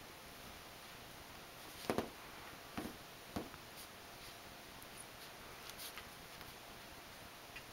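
A puppy wriggling and pawing at plush toys in a fabric dog bed makes a few short, soft rustles and bumps, the loudest about two seconds in. Faint room hiss lies underneath.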